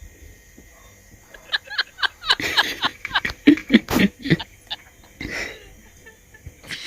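A person laughing in a run of short bursts for a few seconds, with one more short burst a little later.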